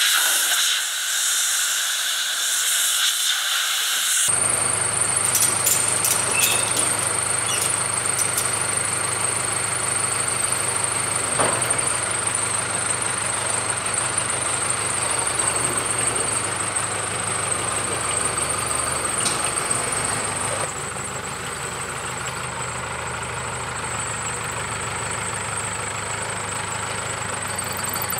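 A steady hiss for about the first four seconds, then a Case backhoe loader's diesel engine running steadily with a constant high whine over it as the loader carries a load on its front bucket.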